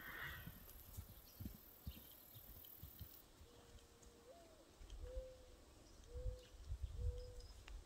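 A dove cooing faintly: one long coo that rises in pitch at its end, then three shorter, level coos, over a low rumble.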